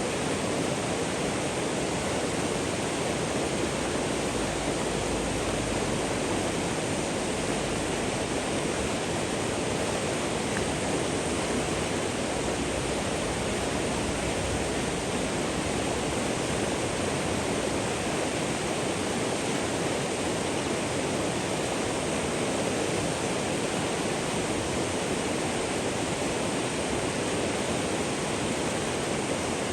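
Running water rushing steadily, an even hiss with no single splashes standing out.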